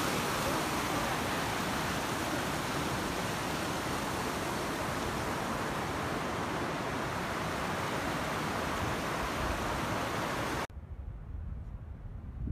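Fast mountain stream rushing over rocks: a steady, even roar of whitewater that cuts off suddenly near the end, leaving a quieter low rumble.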